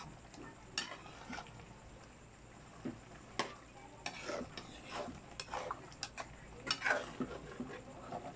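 A metal spatula scrapes and knocks against a frying pan as chunks of chicken, fried banana and sweet potato are stirred over a gas flame, in irregular strokes with the loudest about seven seconds in. A faint sizzle of the food frying runs underneath.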